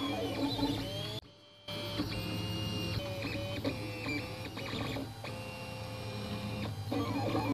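3D printer's stepper motors whining as the print head and bed move, the pitch of the whine stepping and gliding with each change of speed. The sound drops out briefly about a second in.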